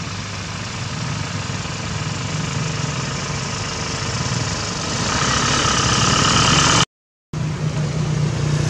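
Motor vehicle engine running steadily with a low hum, growing louder about five seconds in as if drawing closer; the sound cuts out completely for a moment shortly before the end.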